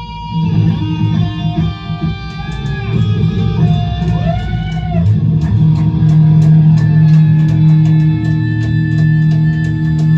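Rock music led by electric guitar, with bends in the guitar notes and bass under a steady beat.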